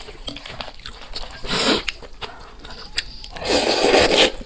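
Close-miked eating sounds: a person chewing and biting food, with small clicks, a short noisy burst about a second and a half in and a longer, louder one near the end.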